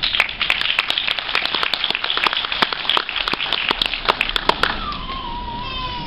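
Audience applauding, with many sharp claps close by, dying away about four and a half seconds in. Near the end comes a single high call that falls in pitch.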